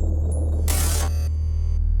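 Low, steady electronic drone of a sound-design music bed, with a short burst of hiss about two-thirds of a second in.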